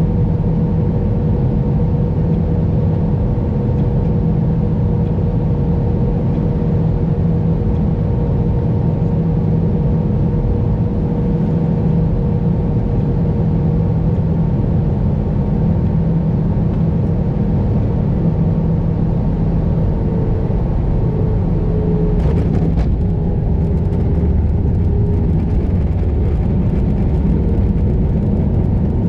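Cabin noise inside an Airbus A320 on approach: a steady rumble of airflow and engines with a constant engine hum. About 20 s in the engine tone drops a little, and a short sharp sound comes just after.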